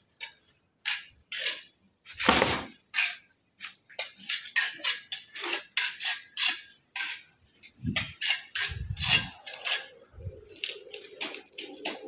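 Stone pieces and masonry tools knocking and clicking against each other in a quick, uneven run of sharp taps, with a few dull thumps among them.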